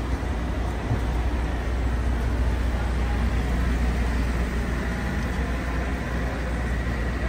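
Busy city street ambience: a steady rumble of road traffic with an even background hum of the street.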